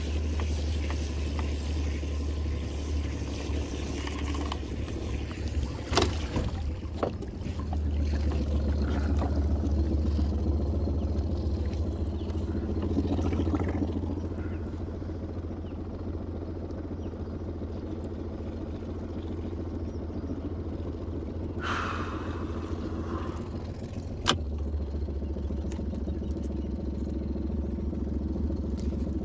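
Suzuki outboard motor idling steadily as the boat creeps along a trotline, with a sharp knock about six seconds in and another a few seconds before the end.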